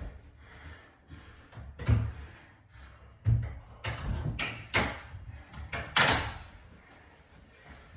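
Wooden bifold closet door being lifted and refitted on its pivot pins and track: a series of knocks and bumps from the door panels, the loudest knock about six seconds in.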